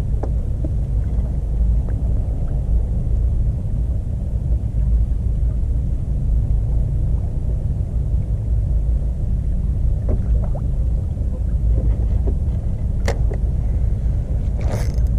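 Small 2-horsepower outboard motor running steadily, pushing a fishing kayak along, heard as a low rumble. A couple of sharp clicks come near the end.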